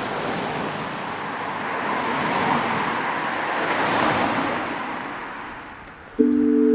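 Street traffic noise: cars passing, the rush swelling twice and then fading away. About six seconds in, a steady ringing chord like a singing bowl or chime starts suddenly.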